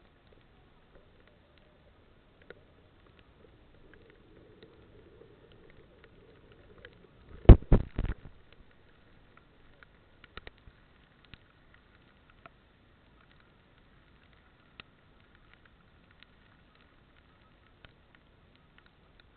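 Raindrops ticking irregularly on a motorcycle-mounted camera in heavy rain, over a faint rumble. A cluster of several loud knocks comes about seven and a half seconds in.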